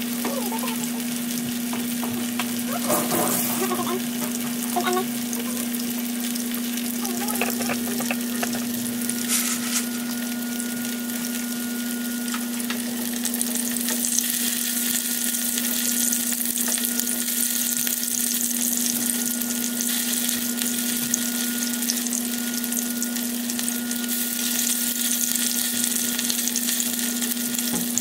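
Skinless longganisa sausages sizzling steadily in oil in a nonstick frying pan, the sizzle growing louder about halfway through, while a fork turns them. A steady low hum runs underneath.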